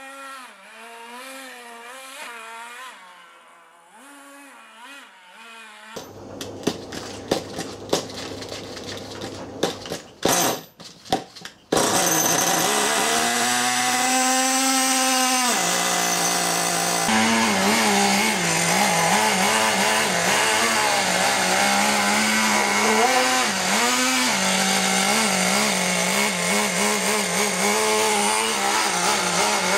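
Small nitro (glow-fuel) engine of a Thunder Tiger SSK v2 RC monster truck. At first it is faint, its pitch wavering up and down; then comes a run of clicks and rattles as it is started. About twelve seconds in it catches and runs loud, its pitch rising and falling with the throttle.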